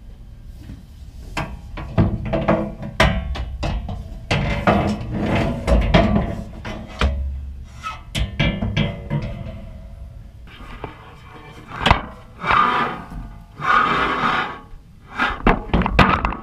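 Background music with many irregular sharp knocks and thunks.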